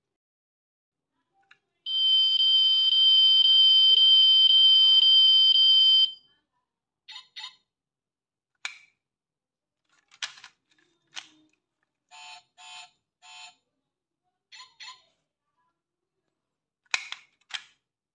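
A toy Rolls-Royce car gives a loud, steady electronic tone for about four seconds, alarm-like. It is followed by a series of small plastic and metal clicks as its doors and parts are handled, with three short electronic chirps in the middle.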